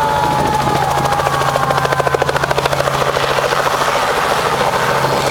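Helicopter running at takeoff, with a steady low hum and the rapid beat of the rotor blades, strongest about two seconds in. A whine slides gently down in pitch over the first second and a half.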